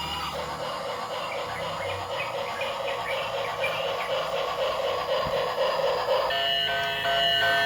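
Battery-powered toy train running on its track, a rattly whir with a steady clicking rhythm. About six seconds in it gives way to steady electronic tones with a pulsing beat.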